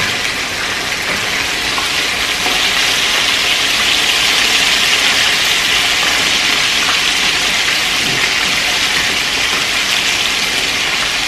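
Chicken pieces sizzling steadily in hot oil in a skillet as they are turned with metal tongs; the sizzle grows a little louder about two seconds in.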